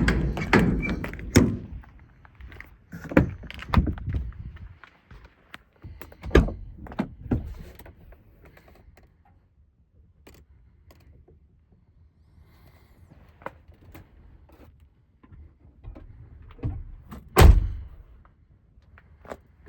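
Truck doors being worked: a string of separate thunks and latch clicks, with the loudest thunk about seventeen and a half seconds in.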